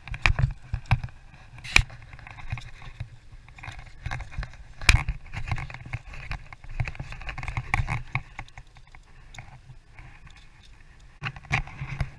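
Footsteps on concrete with rustling and rubbing of a body-worn camera against clothing, low rumble on the microphone and a few sharp knocks, loudest about two and five seconds in.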